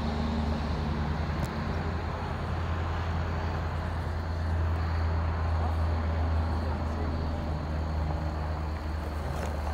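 Car engine running with a steady low hum, heard from inside the car.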